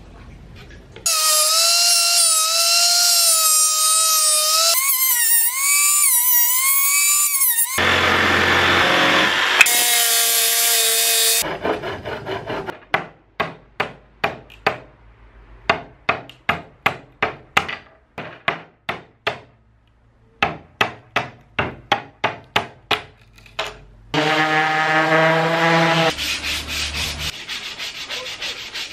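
A power tool whines in three long bursts, its pitch wavering as it cuts. Then a handsaw cuts wood in even strokes, about two to three a second. After another short power-tool burst comes the rasping of wood being sanded by hand.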